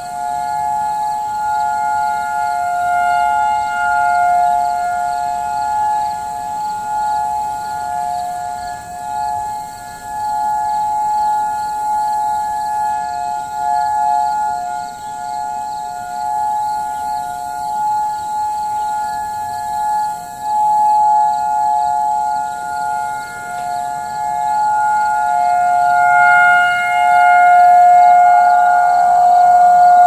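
Several distant Federal Signal tornado warning sirens sounding together in a steady alert tone, their loudness swelling and fading over and over. Near the end the pitch begins to fall as they start winding down.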